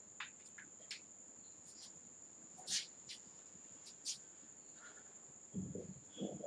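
Marker pen writing on a whiteboard, a few short rubbing strokes near the end. Under it is a faint, steady, high-pitched whine with scattered light ticks.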